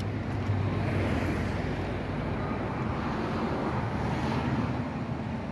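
Outdoor rumble and hiss of wind on the microphone mixed with street traffic, swelling about a second in and again near four seconds.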